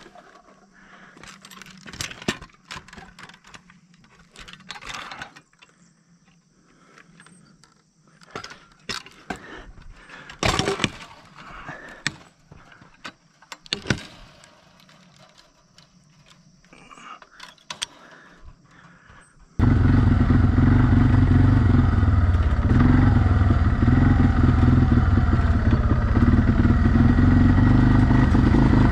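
Scattered knocks, clicks and rattles from gear being handled. About two-thirds of the way in, an ATV engine comes in suddenly and runs loud and steady as the four-wheeler drives off.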